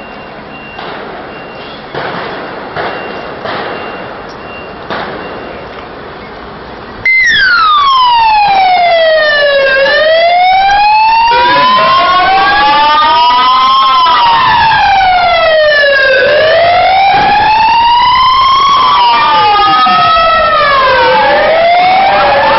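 Street noise with a few sharp knocks, then a siren cuts in loud and close about seven seconds in. It is an emergency vehicle siren wailing in slow falls and rises of a few seconds each, and soon two wails overlap out of step.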